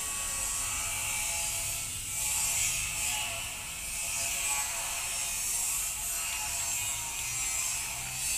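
Small children's bicycles with training wheels rolling slowly over a concrete lane, giving a mechanical clicking and rattling over a steady high hiss.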